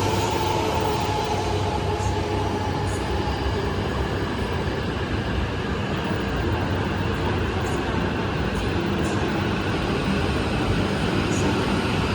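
E5 series Shinkansen train running along a station platform: a steady rumble and hiss that holds even throughout.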